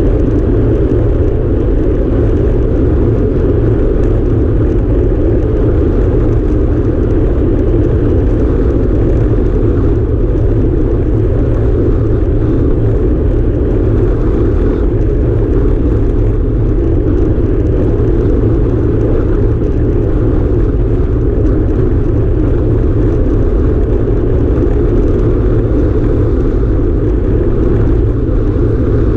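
Wind rushing over the microphone of a handlebar-mounted camera on a road bike riding at speed, a loud, steady rumble.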